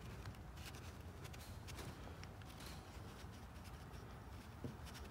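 Faint light clicks and rubbing of small metal engine parts handled by hand, as a new wrist pin is pushed through an outboard piston and its connecting rod's needle bearings, with one sharper click about four and a half seconds in.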